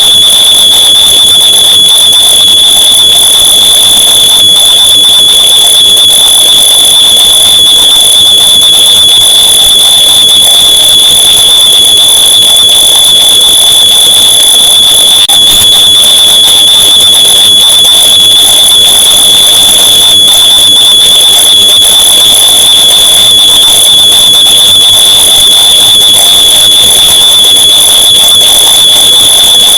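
Smoke alarm's shrill tone layered over itself so many times that it merges into one unbroken, piercing tone with no gaps between beeps. It is very loud and distorted.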